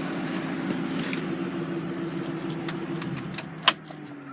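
2005 Ford Mustang GT's 4.6L V8 idling steadily and running clean. Near the end come a few light clicks and one sharp click, after which the engine sounds quieter.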